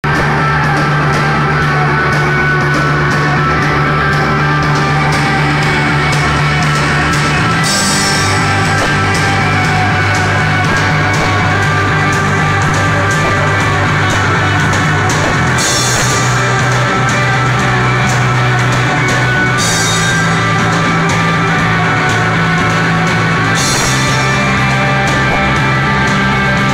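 Live rock band playing loud: electric bass, electric guitars and a drum kit. The bass line moves to a new note about every four to eight seconds, with a cymbal crash at each change.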